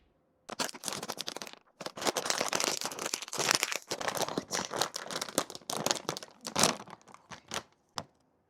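A crinkly snack bag of chocolate-flavoured chips being torn open and handled: a dense run of crackling rustles with short pauses, thinning to a few separate crinkles near the end.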